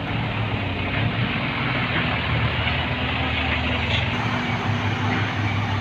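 Diesel dump truck engine idling steadily, heard close to its roughly 3-inch exhaust tip.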